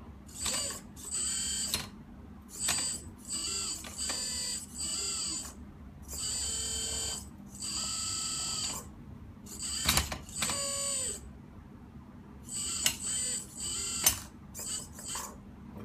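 Boom servo of a 1/16 Huina K336GC RC excavator whirring in about a dozen short bursts, some rising or falling in pitch, as it is driven back and forth from the transmitter after its servo arm was replaced. A few sharp clicks come in between.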